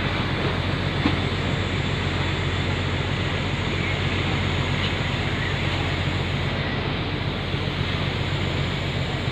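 Steady low hum of a ferry's engines under a constant rushing noise, with a faint click about a second in.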